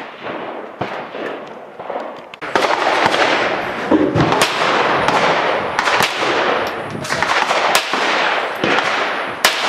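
Gunshots at a shooting range: single sharp reports at irregular intervals, roughly one a second, several of them loud cracks. Between the shots, from about two and a half seconds in, there is a loud, dense rushing noise.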